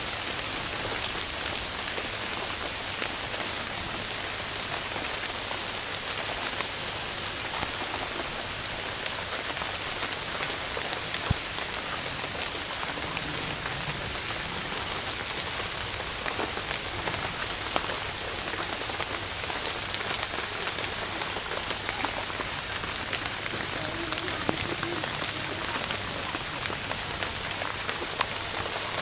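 Steady rain falling, an even hiss with scattered single drops ticking.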